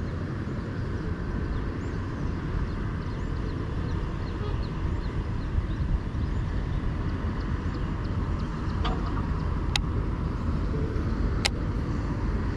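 Steady low wind rumble on the microphone across open marsh, with faint high chirps scattered through it and two sharp clicks near the end.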